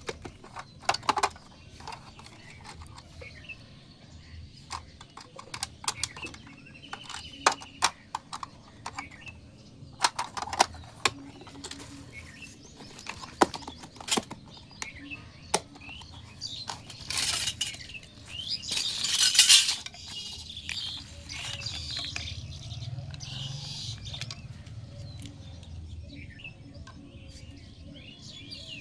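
Small plastic toy pieces and packaging being handled: scattered clicks and taps, with a louder stretch of crinkling and rustling about two-thirds through.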